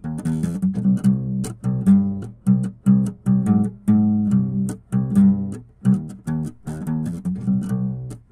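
Background instrumental music of plucked guitar-like string notes in a quick, even rhythm.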